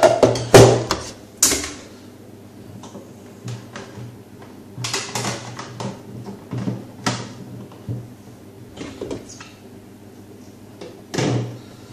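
Clear plastic parts of a Deltec MCE300 protein skimmer knocking, clicking and scraping as they are handled and pushed together by hand. The sharpest knocks bunch in the first couple of seconds, with scattered clicks after.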